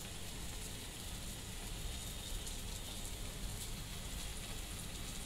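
Steady low background noise: a faint low rumble and hiss with no distinct event.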